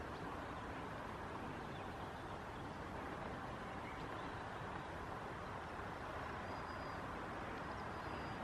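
Steady, even background noise with no distinct events, and a few faint, brief high chirps.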